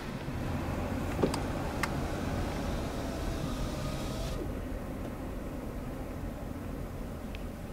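Steady low rumble of vehicle noise inside a moving car running beside an Amtrak passenger train, with two sharp clicks in the first two seconds. The higher hiss drops away suddenly a little past halfway.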